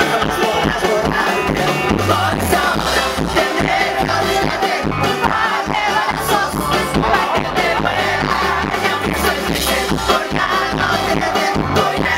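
Live rock band playing, with drums and a lead singer.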